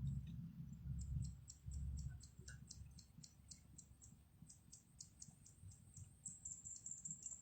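Faint, high-pitched ticking, about four ticks a second, that runs together into a steady high buzz near the end.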